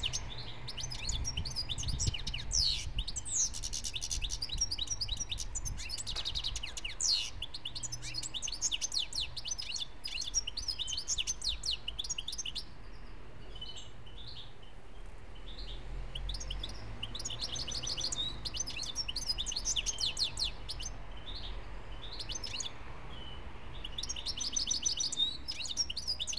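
Caged European goldfinch singing in fast, twittering runs of chirps, thinning out to a few notes twice for a couple of seconds. A low steady rumble runs underneath.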